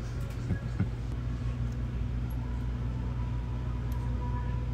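Steady low background rumble of the shop's room tone, with two soft knocks in the first second.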